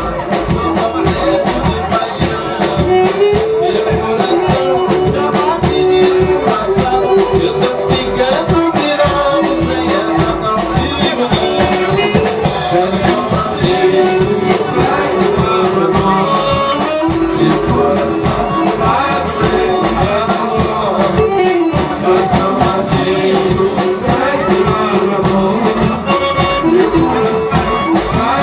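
A regional band playing a gaucho-style vanera dance tune, with a melody line over a steady, even beat.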